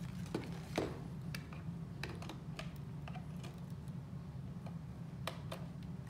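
Scattered small plastic clicks and taps as Ethernet cables' RJ45 plugs are handled and pushed into the ports of a small network switch, over a low steady hum.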